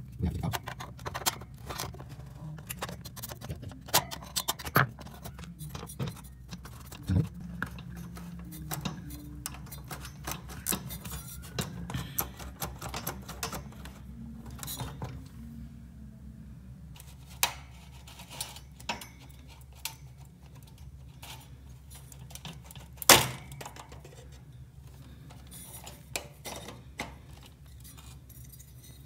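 Irregular clicks, knocks and light metallic rattles of an electric insect killer's fluorescent tubes, plastic tube holders and wire-mesh grille being handled as a stuck tube is worked free, with one sharp, much louder click about two thirds of the way through. A steady low hum runs underneath.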